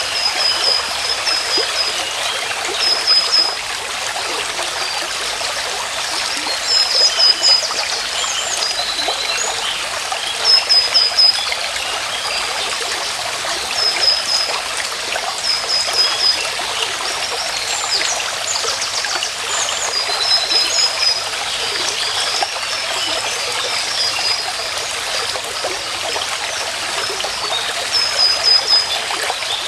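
A stream running steadily, with a bird repeating a short run of high notes every few seconds and other chirps scattered through.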